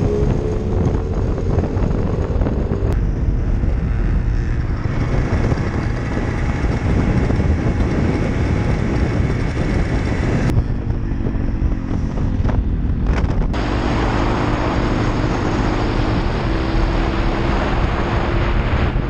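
Small single-cylinder 125cc motorcycle engine running under way, its pitch changing several times with throttle and gears, with heavy wind rumble on the microphone.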